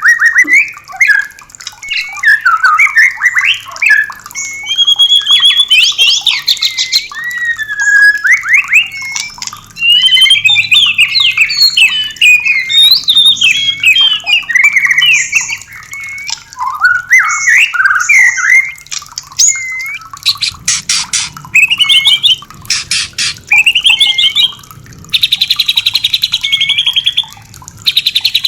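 White-rumped shama singing without a break: fast, varied whistled phrases with sweeping pitch glides. About two-thirds through come a few dry rattling notes, and near the end a longer buzzy rattle, the kind of rattling call keepers call 'kretekan', given by a female in breeding condition.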